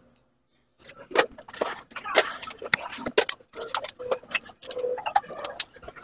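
Irregular sharp plastic clicks and taps, starting about a second in, as the Samsung Galaxy A12's back cover is pressed and snapped onto its frame and the phone is handled.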